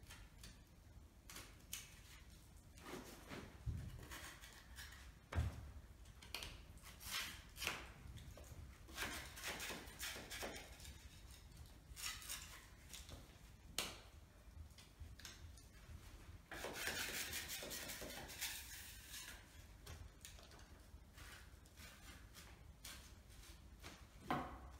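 Metal putty knives scraping and spreading filler over painted wall mouldings: a series of short scrapes and light taps, with a longer continuous scrape about two-thirds of the way through.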